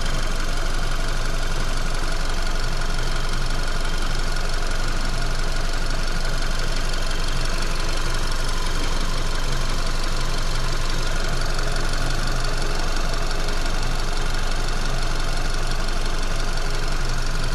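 VW Golf Mk5's engine running steadily, with a rattle from the right side of the dashboard: the fuel hoses, moved during a fuel filter change, are rattling against the body frame.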